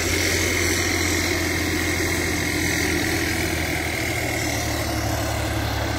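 Turbocharged diesel tractor engine running steadily.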